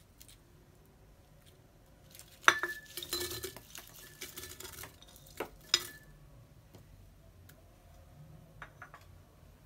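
Split garlic cloves dropped by hand from a ceramic plate into a glass jar, clattering against the glass for about two seconds. Two more sharp glassy clinks follow a few seconds in.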